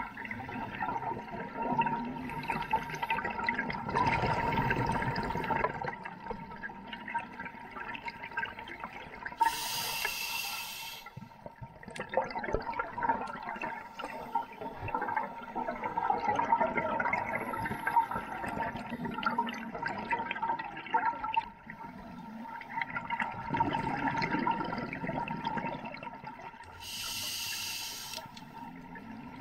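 Scuba diver breathing underwater through a regulator: long bubbling, gurgling exhalations, broken twice by a short hissing inhalation, about ten seconds in and again near the end.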